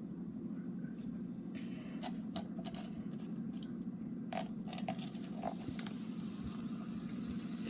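Baking soda and vinegar reacting: a faint fizzing crackle, with a few small clicks and knocks of the container being handled, over a steady low hum.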